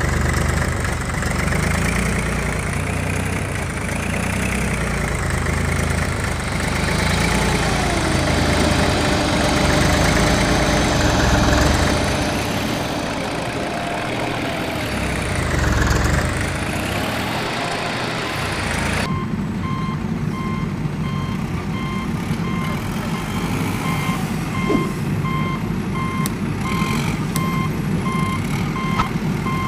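A heavy vehicle's engine runs with rising and falling whines. About two thirds of the way in it cuts abruptly to a reversing alarm beeping steadily over a low engine rumble.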